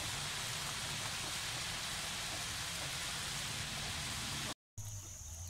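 Eel pieces in a pounded galangal-and-garlic coating deep-frying in hot oil in a wok: a steady sizzle that cuts off abruptly about four and a half seconds in.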